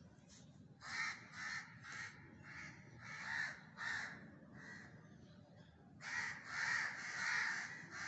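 Several crows cawing: a string of harsh caws about every half second, then denser overlapping calling over the last two seconds. The rescuer takes it for the crows making noise at the sight of a bird hanging upside down, caught in kite string.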